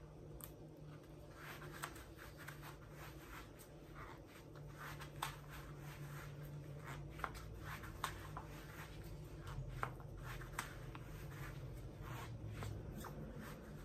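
Faint, scattered clicks and rustles of a latex waist trainer's front zipper being worked up a little at a time, with the band handled against the body.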